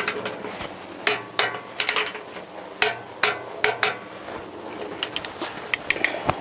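A torque wrench and socket being worked on a motorcycle engine mounting bolt: a series of sharp metallic clicks and clinks, about eight in the first four seconds, then a few fainter ones near the end.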